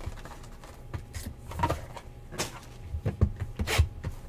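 Cardboard trading card boxes being handled, knocked down on a table, with a folding knife cutting into the plastic shrink wrap on a sealed box of cards, giving a string of sharp crinkles and taps that are loudest near the end.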